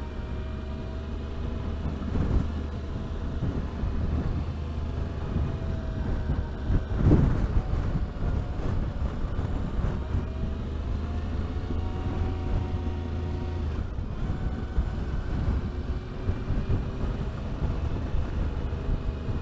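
Yamaha Ténéré 700's 689 cc parallel-twin engine running through its stock exhaust while being ridden, its pitch rising and falling gently with the throttle. Wind buffets the microphone, with a stronger gust about seven seconds in.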